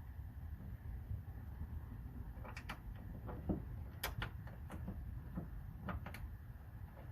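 Scattered light clicks and knocks of door-lock parts being handled and fitted inside a car door, about a dozen over a few seconds, over a steady low rumble.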